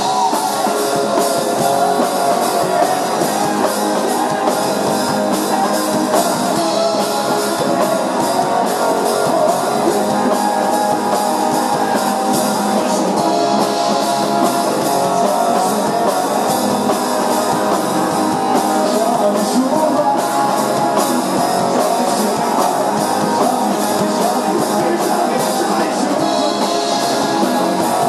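A rock band playing a song with electric guitar, bass and drum kit, the drums keeping a steady beat.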